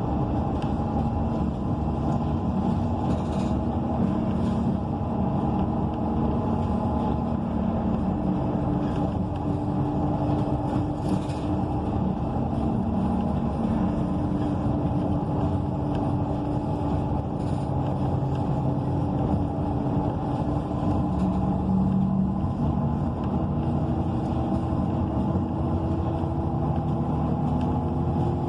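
Inside a 2014 ENC EZ Rider II transit bus under way: its Cummins Westport ISL G natural-gas engine running steadily with road rumble, the engine note shifting slightly a few times.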